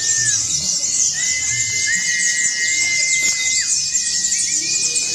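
Many white-eyes (pleci) twittering and chirping at once in a bird-song contest, with several long steady whistle tones, each held for a second or two, and a low murmur of people's voices beneath.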